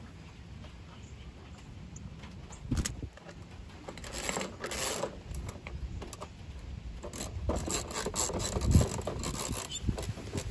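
Socket wrench driving screws into the mower's plastic baffles: a knock about three seconds in, a rasping stretch a second later, then a run of quick ratchet clicks near the end.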